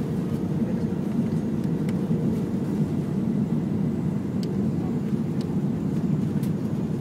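Airbus A380 cabin noise during takeoff: the steady, deep rumble of the four Rolls-Royce Trent 900 engines and the rushing airflow heard from inside the cabin. A few faint clicks sound over it near the end.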